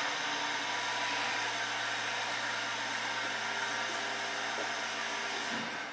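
YR-3000 diesel railcar's equipment running with a steady hiss and a low hum, then cutting off abruptly about five and a half seconds in.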